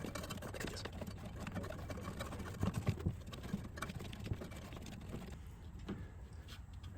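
Quiet handling noises from refitting a rubber fuel line on a snowblower: scattered light clicks and taps over a low steady hum. The engine is not running.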